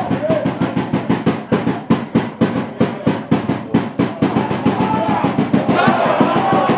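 Football supporters beating a drum in a fast, even rhythm, about five or six beats a second, with spectators' shouts rising near the end.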